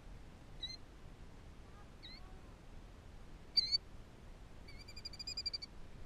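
Killdeer calling: a few sharp, high single notes, the loudest about three and a half seconds in, then a rapid trill of quickly repeated notes near the end.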